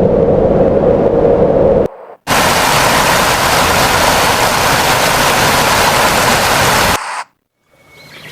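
Ambience sound-effect samples from a video editor's library, previewed one after another. First comes a rumbling noise that cuts off about two seconds in. Then comes a loud, steady hiss like static, which lasts about five seconds and stops abruptly.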